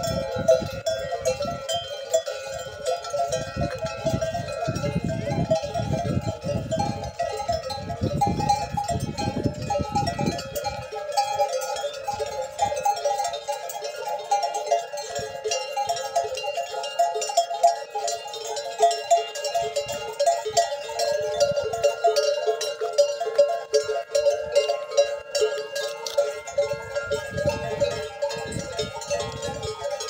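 Many camel bells jangling and clanking together without a break as a herd of camels walks. A low rumble runs under the bells for about the first ten seconds and comes back near the end.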